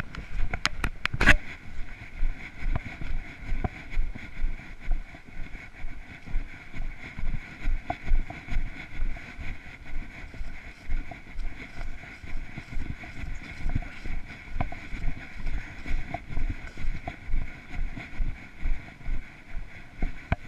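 A person's footsteps at a steady walking pace, about two steps a second, picked up by a body-worn camera that rubs and rumbles with each step. A few sharp clicks about a second in.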